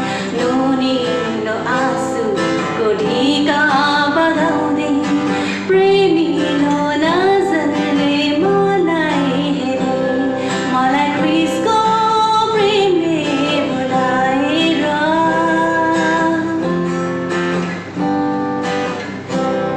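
A worship song sung by a woman's voice over strummed acoustic guitar.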